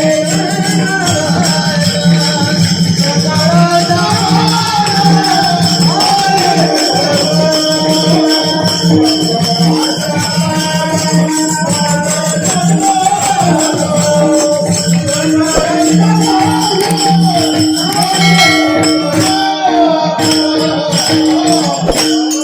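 Marathi kirtan tune: a devotional melody sung over a steady drone, with jingling hand percussion keeping a fast, even beat.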